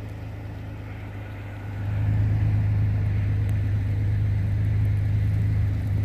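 Strong blizzard wind buffeting the microphone: a low rumble that swells about two seconds in and stays loud until near the end.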